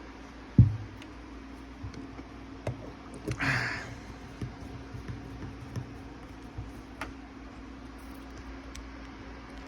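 Handling noises from reassembling a Santa toy: a sharp knock about half a second in, a brief scraping rustle a few seconds later, and scattered small clicks over a steady faint hum.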